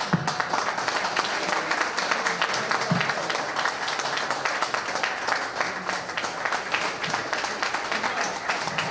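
Audience applauding: many hands clapping steadily without a break.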